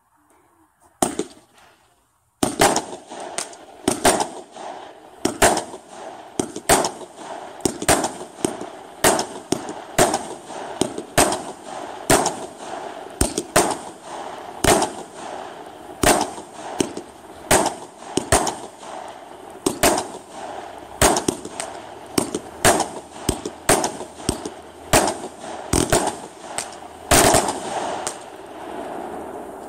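Raptor consumer firework cake firing a rapid barrage of sharp bangs, roughly one to two a second, over a steady crackle. A single shot comes about a second in, and the steady run starts at about two and a half seconds.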